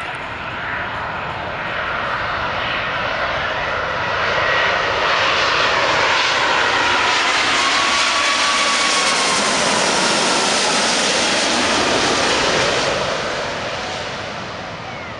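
Boeing 777-200ER jet engines on final approach passing low overhead: a loud jet rush that swells from about four seconds in, holds until about thirteen seconds, then fades as the airliner moves away, with a whine that slides in pitch as it goes by.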